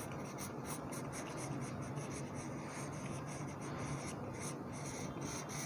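Charcoal pencil scratching across drawing paper in short, quick strokes, several a second, as eyelashes are flicked in.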